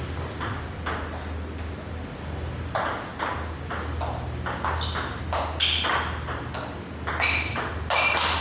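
Table tennis ball knocking off bats and table: a couple of taps at first, then a quick rally of sharp pocks, about two or three a second, from about three seconds in. A steady low hum runs underneath.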